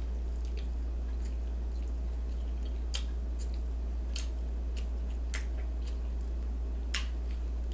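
A person chewing a mouthful of food: scattered irregular wet mouth clicks and smacks over a steady low hum.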